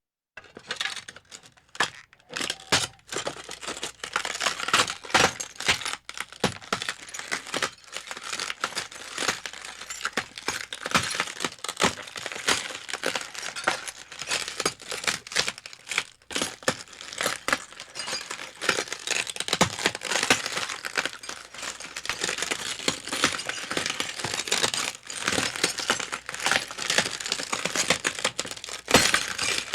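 Glass breaking and crunching: a long continuous stream of sharp cracks and tinkling shards, with the densest crackle in the upper range and many louder snaps scattered through it.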